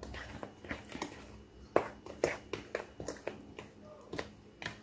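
Hand whisk stirring flour into a butter mixture in a stainless steel bowl: irregular scrapes and clicks of the whisk against the bowl, a few each second.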